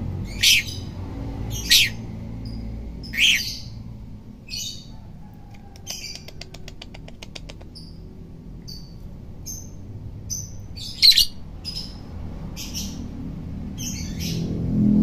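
Lovebird calling: a string of short, sharp high chirps about a second apart, with a fast buzzy rattle about six seconds in. The loudest chirp comes about eleven seconds in.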